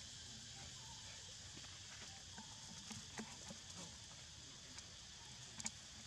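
Faint crackles and taps of a monkey's feet on dry leaf litter over a steady high hiss, with a sharper click about five and a half seconds in.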